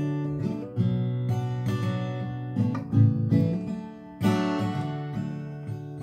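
Acoustic guitar with a capo, strummed in ringing chords. It dips quieter about four seconds in before a fresh, strong strum.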